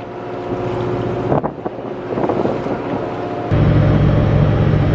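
Boat engine running steadily, with a wind-like rush; after a cut about three and a half seconds in, a deeper, louder engine hum.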